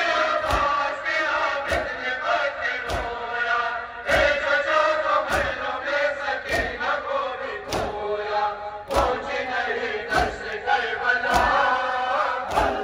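A crowd of mourners chanting a nauha lament in unison, with a sharp collective beat about every second and a bit, typical of matam, the rhythmic chest-beating that keeps time with the lament.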